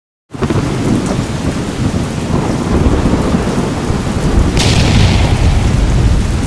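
Thunderstorm sound effect: heavy rumbling thunder over steady rain, starting suddenly just after the start, with a sharper crack a little past halfway.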